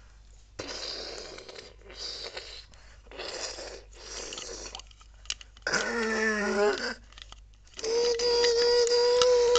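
Small terrier-type dog growling and huffing in short bursts while tugging at a toy held in its mouth, then giving two longer whine-like vocal notes, the second held steady for about two seconds near the end.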